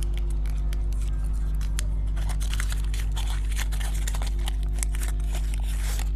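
Plastic candy packaging crinkling and crackling in irregular short spells as it is handled and opened, over a steady low hum.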